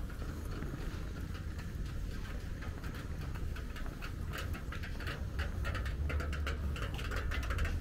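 Footsteps on paving stones: a quick, regular run of sharp steps that grows louder about halfway through, over a low steady rumble.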